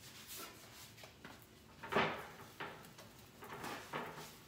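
Kitchen handling noises at the stove: a sharp knock about two seconds in, the loudest sound, with softer knocks and rubbing around it.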